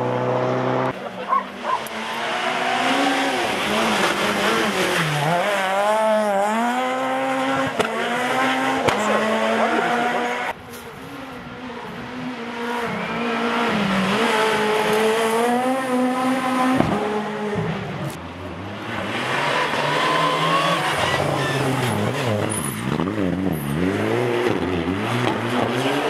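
Rally cars at full speed on a special stage, their engines revving hard, the pitch climbing and falling again and again with gear changes and lifts for corners. The sound cuts off suddenly about ten seconds in, and another car's engine builds up in its place.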